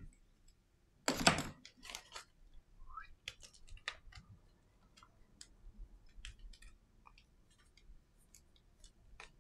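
Small plastic clicks and taps as a Samsung Galaxy A51's back cover is handled and pressed on around its edges. A louder clatter comes about a second in, with a smaller one just after.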